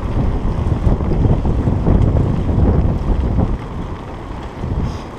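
Mountain bike rattling and rumbling over cobblestones, with wind buffeting the microphone. The rumble eases off about three and a half seconds in.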